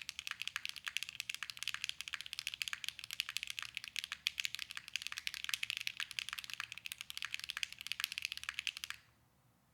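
Fast, steady typing on a Mode Envoy custom mechanical keyboard with HMX Cheese switches on an aluminium plate with no foam: a bright clack on every keystroke. The typing stops abruptly about nine seconds in.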